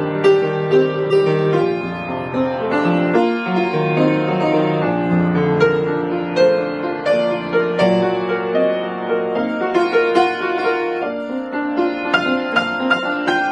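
Grand piano played solo: sustained low chords under a moving melody, with the notes coming quicker and brighter near the end.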